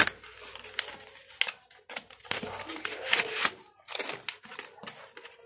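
Plastic wrapping of a watercolour pencil pack crinkling and rustling as it is opened by hand, in several irregular bursts.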